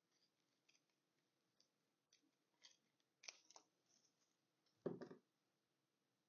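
Small scissors snipping fabric, a handful of faint, quiet snips spread over several seconds, then a louder brief thump about five seconds in.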